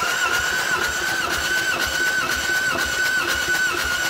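Starter motor cranking a four-cylinder diesel engine that does not start, for a wet compression test with oil added to the cylinder. The starter's steady whine dips about twice a second as the pistons come up on compression.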